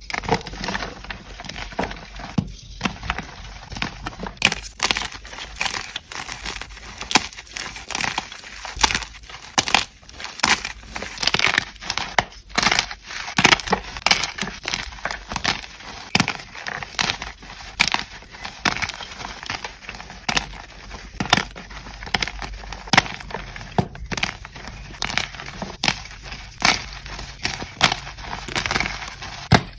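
Blocks of gym chalk being crushed: repeated sharp crunches and crackles, several a second, as the chalk breaks and crumbles.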